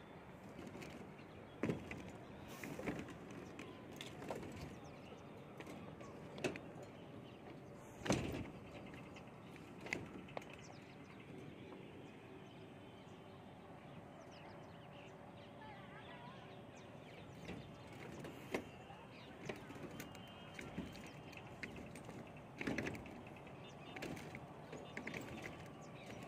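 Faint outdoor background with irregular knocks and clicks scattered through it, the strongest about 8 seconds in, and birds calling now and then.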